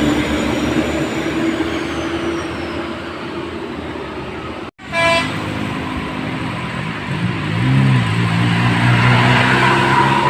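Bus and road traffic running, with a brief cut in the sound about halfway through. Right after the cut, a bus's Basuri musical air horn gives one short toot. Later, a deep engine note rises and falls briefly.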